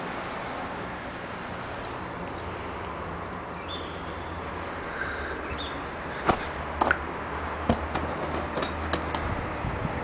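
Outdoor background noise with short, high bird chirps through the first half, then a few sharp knocks about six to eight seconds in.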